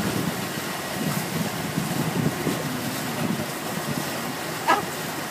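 Steady wind rushing over the microphone with the running noise of a river ferry under way, and one short sharp sound near the end.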